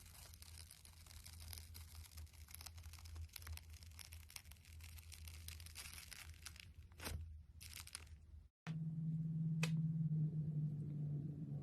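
Slime being squeezed and stretched, crackling and popping with many tiny clicks from trapped air. About eight and a half seconds in, the sound cuts off abruptly and a steady low hum takes over, with a single click soon after.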